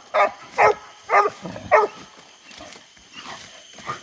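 English coonhounds barking treed at the foot of a tree: four loud barks about half a second apart, then fainter barking in the second half. This is the tree bark that signals quarry up the tree, which the hunter takes for a raccoon.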